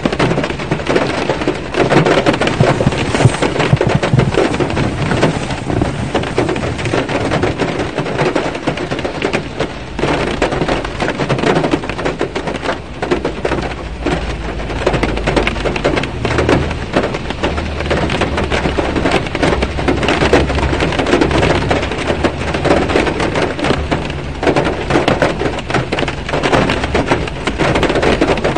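Heavy rain drumming on a car's roof and windshield, heard from inside the car: a dense patter of drops over a steady hiss. A low rumble swells underneath around the middle.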